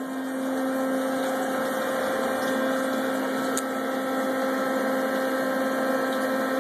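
Machine-shop machinery running with a steady hum, with one faint click about three and a half seconds in.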